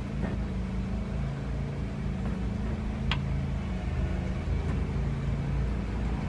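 A steady low motor hum with a rumble beneath it, and one sharp click about three seconds in.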